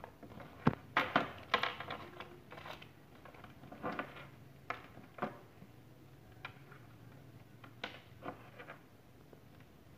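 Handling noise from a lavalier microphone's cable and small parts being sorted on a wooden tabletop: scattered light taps, clicks and rustles, busiest in the first few seconds and then single taps every second or so.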